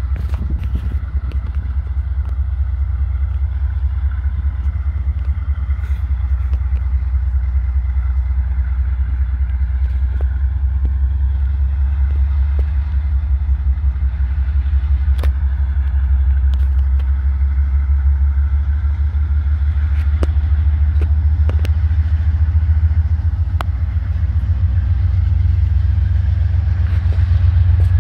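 Diesel locomotive heading a ballast train, running with a steady low rumble that grows slightly louder as the train rolls slowly by, with a few short sharp clicks now and then.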